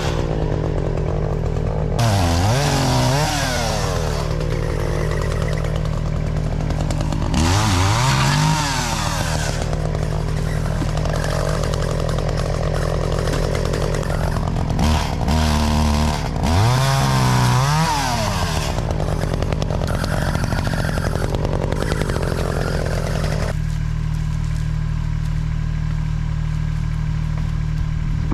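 Two-stroke chainsaw revving up and cutting through a piece of wood, speeding up and dropping back several times, over a steady low engine idle. The high cutting sound stops about 23 seconds in, leaving the idle.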